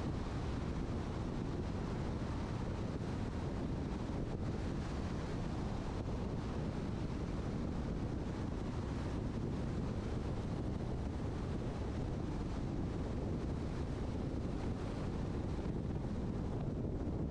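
Steady road and wind noise from a car driving, a low, even rush without any distinct events.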